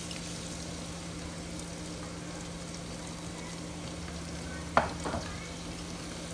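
Minced garlic frying in hot oil in a pan, a steady sizzle as it is stirred. Near the end a stirring utensil knocks sharply once against the pan, then a couple of times more lightly.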